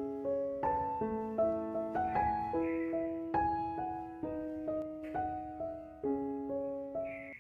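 Background music: a gentle piano melody, notes struck one after another and left to ring.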